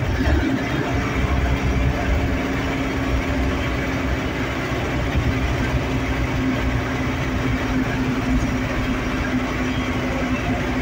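Steady engine and tyre rumble of a large vehicle heard from inside its cab while driving through a road tunnel, with a constant low hum over the road noise.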